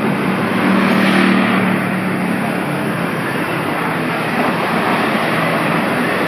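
Road traffic noise: a motor vehicle's engine runs close by and is loudest in the first two seconds, then fades into a steady wash of traffic.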